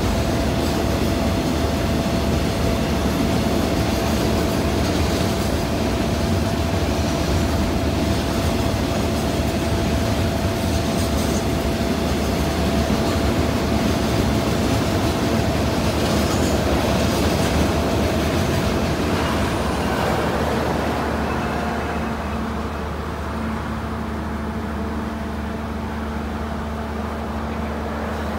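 Container freight train wagons rolling past on the rails: a steady rumble and rattle of wheels on track, with a faint steady whine. It grows somewhat quieter from about twenty seconds in.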